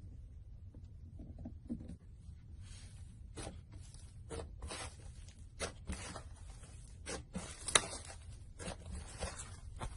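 Slime being pressed and stretched by hand, giving irregular sticky clicks and pops that turn into a busy crackle a few seconds in, with one sharper pop near the end.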